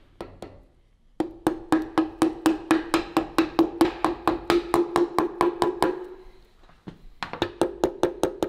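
Hand ratchet clicking rapidly while running down a bolt, about six clicks a second, with a steady ringing note beneath the clicks; it pauses briefly and starts again near the end.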